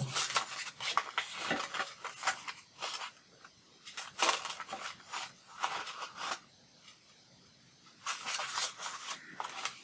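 Orange-handled craft scissors snipping through printed paper, with the paper crackling and rustling as it is turned; the cutting comes in three runs with short pauses between them.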